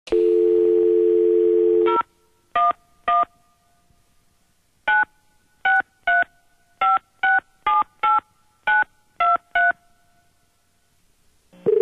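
A telephone dial tone holds for about two seconds, then about a dozen touch-tone (DTMF) beeps as a number is dialed, in irregular bunches. Just before the end the ringback tone starts as the call goes through.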